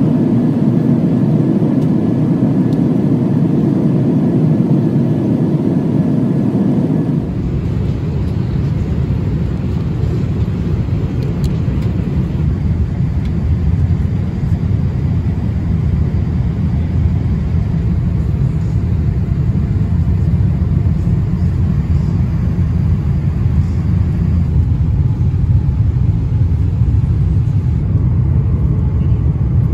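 Airliner cabin noise: the steady rushing drone of jet engines and airflow heard from a passenger seat. About seven seconds in it changes abruptly to a lower, deeper rumble.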